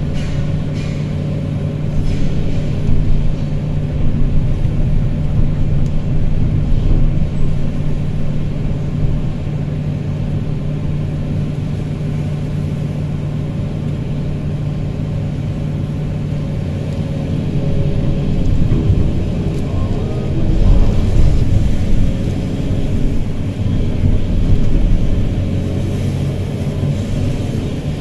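Excavator's diesel engine running steadily with a low hum, heard from inside the cab, growing louder in stretches as the machine works its boom and bucket to dump sand into a dump truck.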